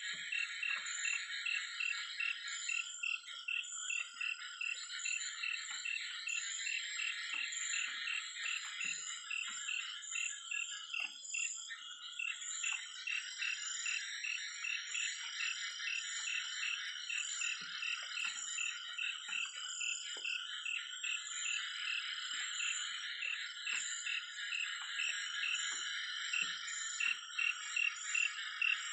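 Night chorus of frogs and insects: a dense, unbroken trilling with a repeated chirp about three times a second and a thin, high pulsing buzz above it.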